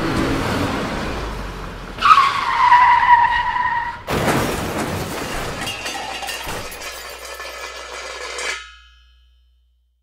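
Tyres screeching for about two seconds, a falling squeal, cut off by a sudden crash with a clatter of breaking debris that dies away over several seconds.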